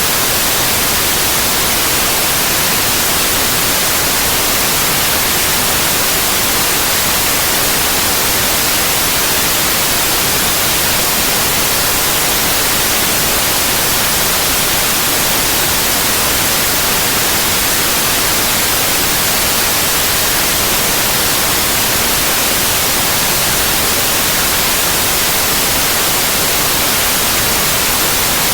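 Synthetic white noise: a steady, even hiss that does not change.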